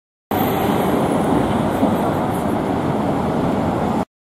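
Steady road traffic noise. The sound drops out completely for a moment at the start and again just before the end.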